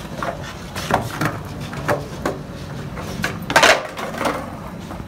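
Wooden skateboard clattering on a concrete sidewalk during a trick attempt: several separate knocks of the deck and wheels hitting the pavement, the loudest clatter about three and a half seconds in.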